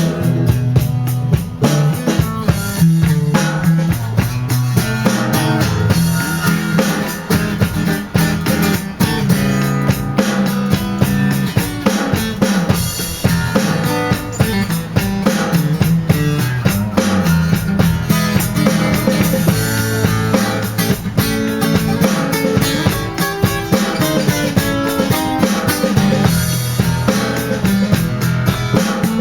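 Live blues band playing an instrumental stretch: a drum kit keeps a steady groove on snare and bass drum under guitar and low bass notes.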